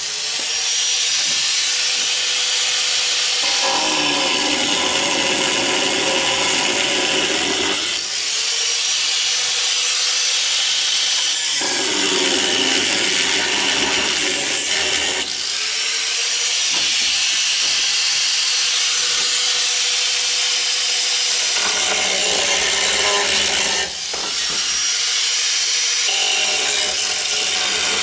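Angle grinder with a thin cutoff wheel cutting through the sheet-metal floor and kick panel of a 1966 Ford F100 cab, a loud, steady grinding with a motor whine. The whine briefly drops and picks up again a few times as the wheel is eased off and back into the cut.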